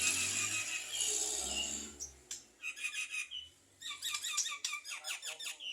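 Javan myna singing: a harsh, hissing phrase, then a quick run of squeaky chirps and clicks, about five notes a second toward the end.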